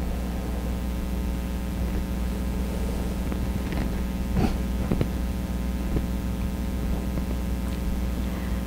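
Steady electrical mains hum, with a few faint clicks about halfway through.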